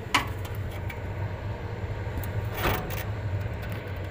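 Metal knocks and clinks from handling the split AC outdoor unit's panel and screws: a sharp one just after the start, the loudest, and another about two-thirds through, with a few small ticks. A steady low hum runs underneath.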